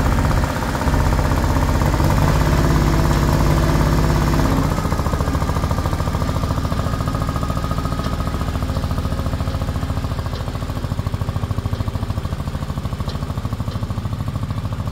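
Daedong compact diesel tractor engine running, loudest for the first four or five seconds, then settling to a steady, slightly quieter beat as the tractor drives away.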